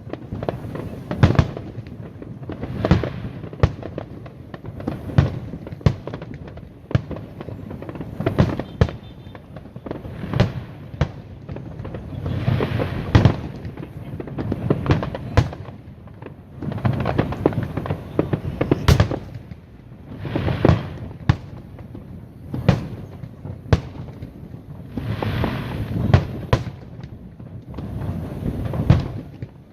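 Aerial fireworks display: sharp bangs of bursting shells, about one a second, with spells of denser crackle and rumble between them.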